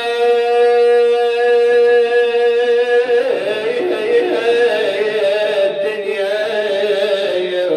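A man's voice chanting a Shia lament (nai) for Imam al-Mahdi. He holds one long steady note for about three seconds, then carries on in a wavering, ornamented line that settles on a lower note near the end.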